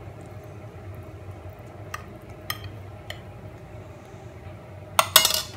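Steel spoon pressing and levelling soaked bread in a glass baking dish, with a few light clicks of the spoon on the glass, then a loud cluster of dishware clinks and clatter near the end.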